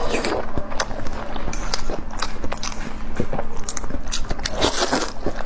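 Close-miked eating: biting and chewing, with many short sharp clicks and wet noisy smacks in quick succession.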